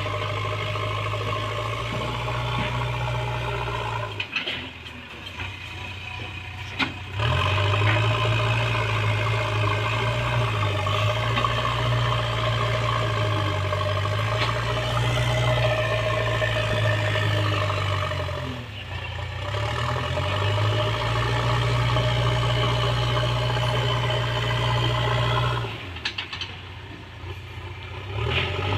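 JCB 3DX backhoe loader's diesel engine running under load, its pitch wavering as the machine works. The engine sound drops briefly about four seconds in, dips again past the middle, and falls off near the end.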